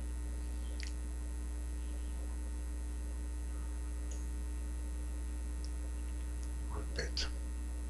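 Steady electrical mains hum in the recording, with a few faint clicks, one about a second in and two close together near the end.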